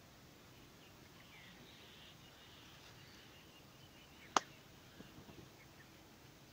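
Faint outdoor background with a few soft bird chirps, broken by one sharp click about four seconds in, followed by a few soft knocks.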